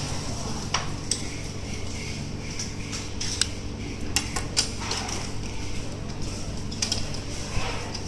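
Sharp, irregular metallic clicks and snips from hand wire cutters trimming the braided shield and centre wire of RG59 coaxial cable at a BNC connector, about nine in all, some in quick pairs.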